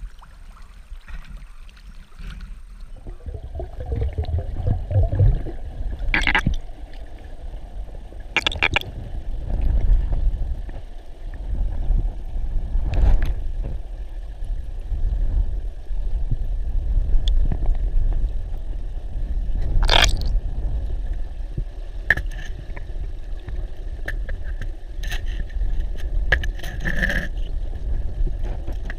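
Underwater river noise heard through a diver's camera: a low, surging water rumble with scattered sharp clicks and knocks.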